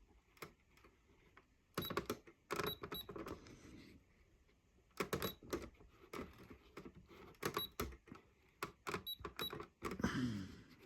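Keys being pressed on an electronic cash register: scattered runs of sharp clicks, several with a short high beep, with brief pauses between runs.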